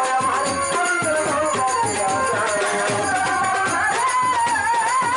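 Live Bengali baul folk music: a male singer sings into a microphone over an ensemble whose percussion keeps a steady beat, and he holds one long note from near the end.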